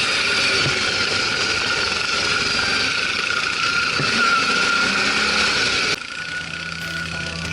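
Single-cylinder ATV engine running under way, a steady drone and whine with rushing noise. It cuts off abruptly about six seconds in, replaced by rock music.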